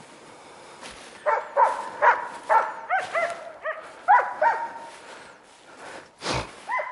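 Laika hunting dogs barking in a quick series of about ten barks starting about a second in, then a pause, with a dull knock near the end.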